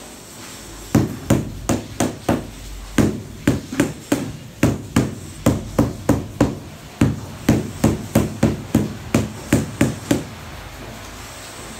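Rubber mallet tapping a large floor tile down into its sand-cement mortar bed to seat and level it: a quick run of sharp taps, about three a second, with two short pauses, stopping about ten seconds in.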